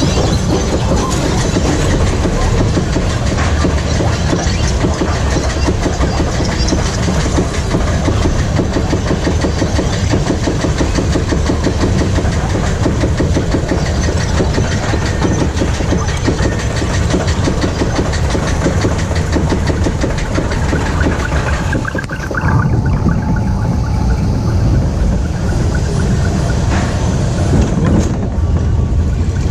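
Reverchon spinning coaster car being pulled up the chain lift hill, the lift chain and anti-rollback clacking rapidly and evenly. About twenty seconds in the clacking stops as the car crests the lift, and it rolls on along the track with a steady rumble.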